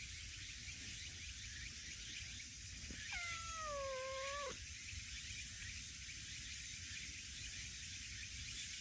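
A brown tabby cat meows once, about three seconds in: a single drawn-out meow of about a second and a half, its pitch falling and then levelling off before it stops.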